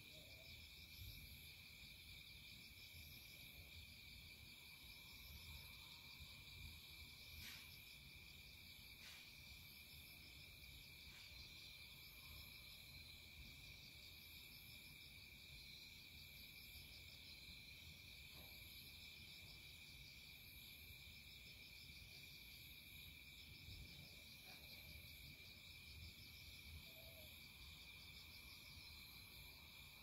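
Faint chorus of insects in a rural night setting: one steady high trill with a second, pulsing chirp repeating about once a second. A couple of faint ticks come through in the first third.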